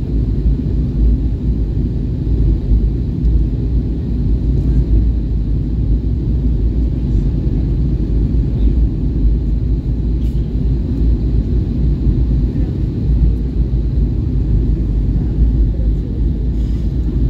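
Steady low rumble of engine and airflow noise inside an Airbus A320's passenger cabin as the airliner descends on approach to land.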